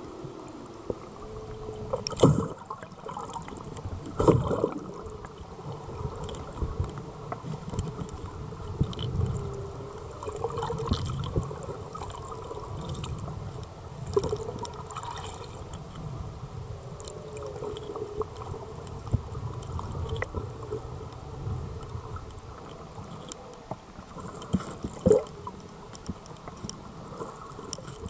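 Underwater sound picked up by a submerged camera: a muffled low rumble and wash of water with a faint wavering tone, broken by sharp knocks about two, four and twenty-five seconds in.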